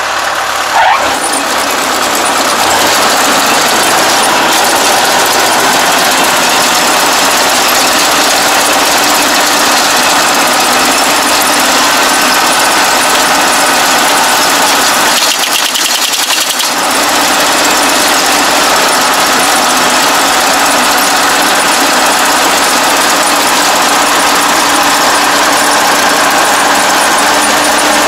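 Rice combine harvester running loud and steady close by, its engine and threshing and feed mechanism turning while the cutting header is choked with lodged rice stalks. The noise dips briefly about halfway through.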